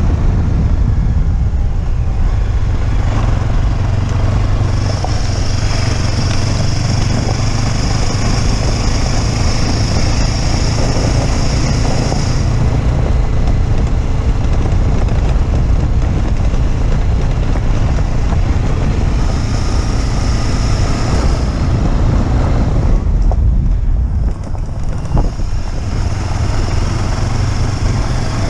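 Motorcycle engine running steadily under way. A high hiss comes and goes above it, and near the end the noise drops away briefly before picking up again.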